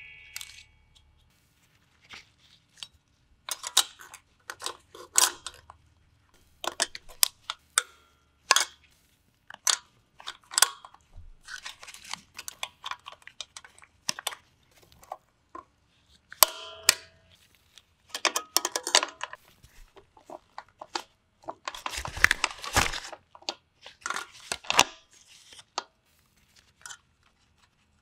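Drum brake hardware being fitted by hand: irregular metal clicks and clinks from the shoe springs, self-adjuster lever and cable, mixed with scuffing from gloved hands. A longer, louder scuffing comes about two-thirds of the way in.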